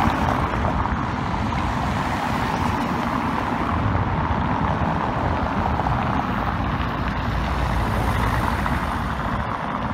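Road traffic on a city street: cars driving past, a steady wash of engine and tyre noise.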